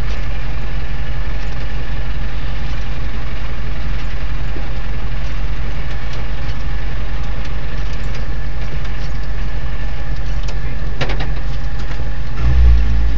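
Rally car engine idling, heard from inside the cabin while the car waits at the stage start. The engine grows louder near the end as the revs come up.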